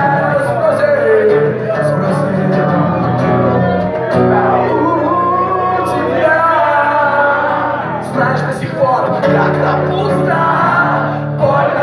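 Live music: a song with sung vocals over guitar accompaniment, played in a large hall.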